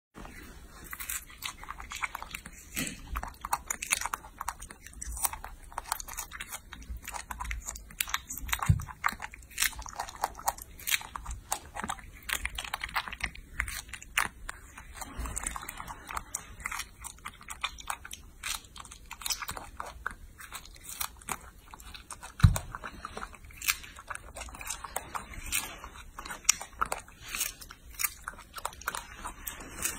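Baby monkey biting and chewing strawberries, with many small wet, irregular chewing clicks and two louder knocks along the way.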